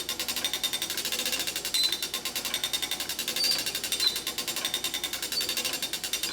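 The winding mechanism of a 1913 J. Smith and Sons tower clock being cranked by hand: its ratchet and pawl click rapidly and evenly as the winding raises a 60-pound driving weight.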